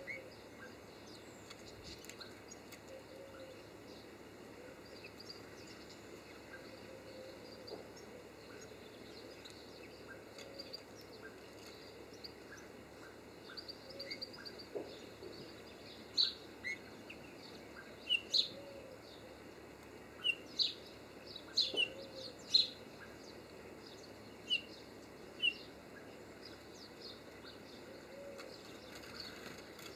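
European greenfinches giving short chirping calls, sparse at first and then louder and more frequent through the second half, over a steady background hiss.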